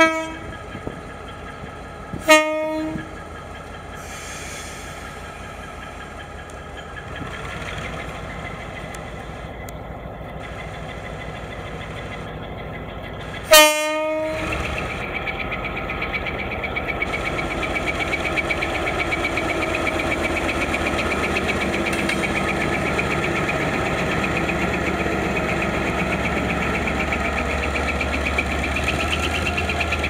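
GM G22 diesel locomotive sounding its horn in three short blasts: two at the start about two seconds apart, and a third, the loudest, about 13 seconds in. Its EMD 567 two-stroke diesel then throttles up from idle and runs louder and steady as it pulls the train away.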